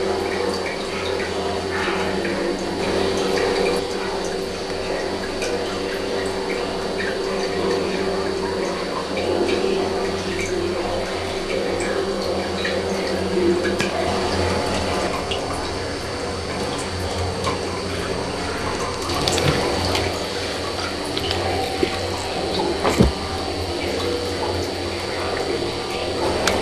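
Water running with a steady mechanical hum and scattered small clicks, with one sharp knock near the end. The sound comes from the audio of a training video in which colored water is perfused through a fox cadaver.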